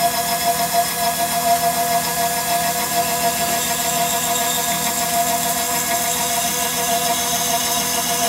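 Tormach PCNC 1100 mill's 4-inch side milling cutter slotting aluminium under coolant: a steady cutting noise with a high, unchanging whine.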